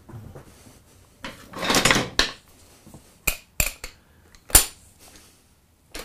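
Metal-on-metal handling at a three-jaw chuck on a horizontal mill during a dial-indicator runout check: a short scraping rustle, then three or four sharp metallic clanks and clicks, the last the loudest.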